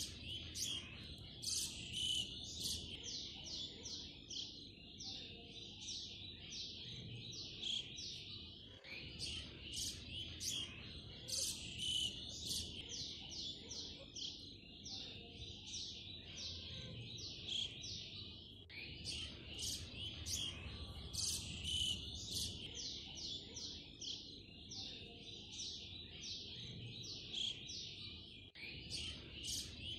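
Small birds chirping and twittering in quick, dense series over a low steady background hum. The same stretch of chirps comes back about every ten seconds.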